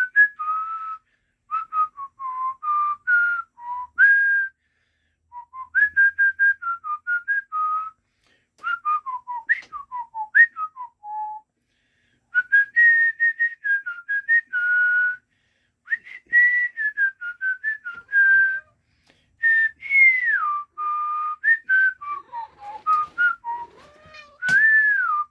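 A man and a pet cockatiel whistling back and forth: short whistled phrases of stepped and sliding notes, with brief pauses between them.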